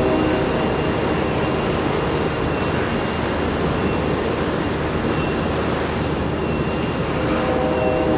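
Freight cars of a long train rolling past, a steady rush and rumble of wheels on rail; a faint steady tone fades out at the start and returns near the end.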